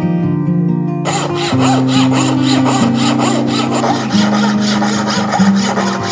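A hand-built 12-inch bow saw cutting into a thin wooden board held in a vise, in quick, even back-and-forth strokes that start about a second in. Acoustic guitar music plays throughout.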